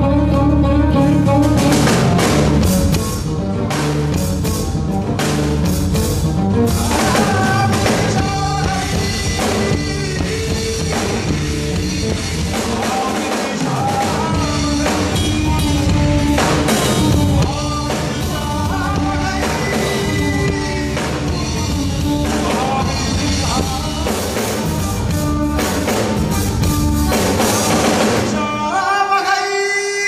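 Live band playing Indian fusion rock: bass guitar, electric guitar and drums with tabla under a male voice singing. Near the end the instruments drop out, leaving the voice singing alone.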